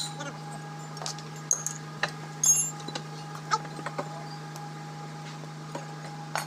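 Scattered metallic clinks and clanks of a flywheel being pried off a tractor engine block and set down. The loudest is a ringing clank about two and a half seconds in, with a steady low hum underneath.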